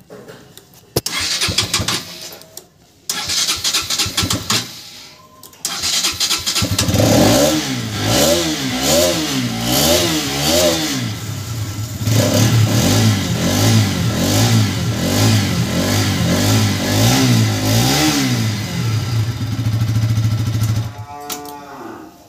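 Bajaj Pulsar NS200's single-cylinder engine cranked twice on the electric starter, catching about six seconds in, then revved up and down several times on the throttle before settling into a fast idle with throttle blips. It is a flooded engine starting once the excess fuel has been cleared out.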